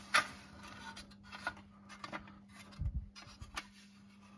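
Faint handling noise: scattered rubbing, scratching and clicks as the handheld camera is moved about under the car, with a few soft low thumps about three seconds in, over a steady faint hum.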